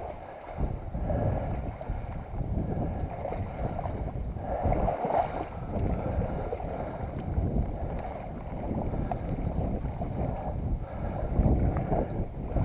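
A person wading through marsh water and thick grass: uneven swishing and splashing that swells with each step.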